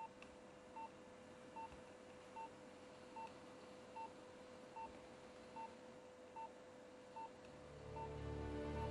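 Hospital patient monitor beeping with the heartbeat, one short high beep about every 0.8 seconds, over a faint steady hum. Soft music comes in near the end.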